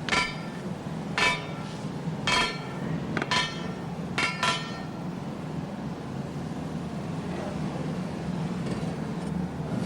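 Hand hammer striking iron, about six ringing metallic blows at uneven spacing, fitting iron rings being driven on. A steady low hum continues underneath.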